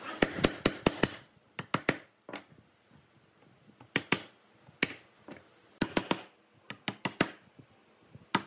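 Wooden mallet striking a chisel to chop a mortise in a wooden board: sharp knocks in quick runs of two to five, with short pauses between the runs.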